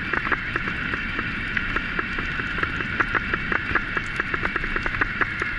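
Bicycle rolling fast over a gravel track: steady tyre noise with many irregular clicks and knocks from stones and the rattling bike.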